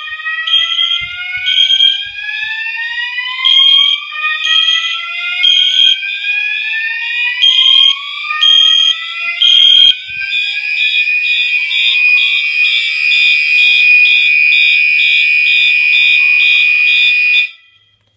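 Several fire alarm notification appliances on a Silent Knight SK-2 fire alarm system sounding together in alarm. Overlapping slow rising whoop sweeps mix with a high horn tone pulsing about once a second; from about ten seconds in, a faster pulsing tone and steady tones take over. Everything cuts off abruptly near the end.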